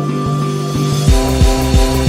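Music: sustained chords, with a heavy bass beat coming in about a second in.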